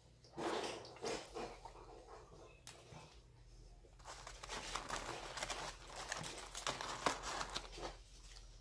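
Close-miked mukbang eating of a bacon cheeseburger and fries: crinkling, crunching and chewing in short irregular bursts, thickest in the second half.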